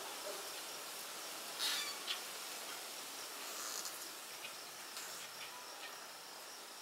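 Wind blowing through a tall leafy tree, with faint, short high squeaks from its branches straining in the wind, which sound like a branch about to break off.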